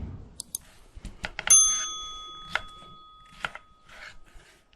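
A knife knocks on a cutting board a few times while cutting potatoes. About one and a half seconds in, a metal object is struck once and rings with a clear, bell-like tone that fades slowly over about three seconds.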